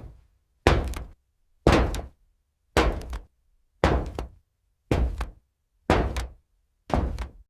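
Slow, heavy footsteps on a metal surface, about one step a second, seven full steps. Each step is a solid thud that rings briefly and dies away within about half a second.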